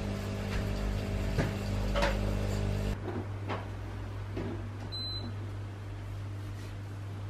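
A kitchen appliance hums steadily, then cuts off abruptly about three seconds in. A single short high beep sounds about two seconds later, among light clicks and knocks.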